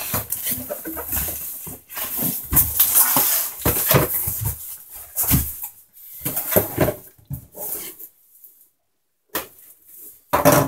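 Unboxing handling noise: cardboard and bubble wrap rustling and scraping, with knocks as a cardboard box is lifted out of a shipping carton and set down on a wooden desk. A second of silence falls after about eight seconds, followed by a sharp, loud noise near the end.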